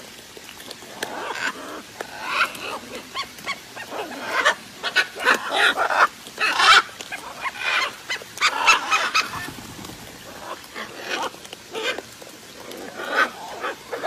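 A flock of macaws and other large parrots squawking, many short overlapping calls at once, thickest in the middle and thinning out near the end.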